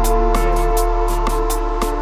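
Background music: a light instrumental piece with held notes over a quick, steady ticking beat.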